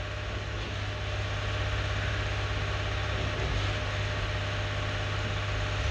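Steady kitchen background noise: a constant low hum with an even hiss over it, unchanging throughout.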